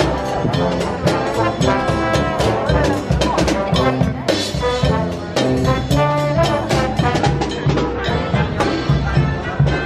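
Brass marching band playing a tune over a steady drumbeat, with sousaphones among the horns.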